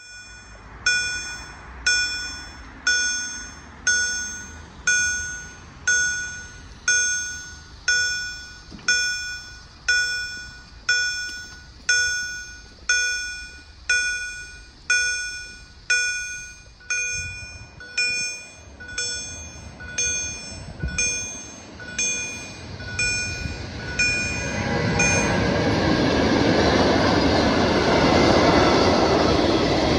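Level-crossing warning bell ringing with evenly spaced strikes, about one a second, each ringing out and fading, signalling that a train is coming. The bell stops about 25 seconds in as the noise of an approaching train grows louder and the train passes the crossing.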